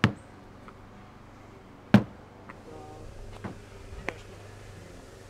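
Two sharp smacks about two seconds apart, followed by a few fainter taps.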